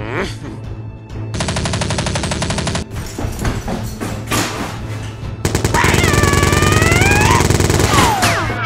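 Two bursts of rapid automatic machine-gun fire sound effects, a short one about a second in and a longer, louder one from about the middle, over background music.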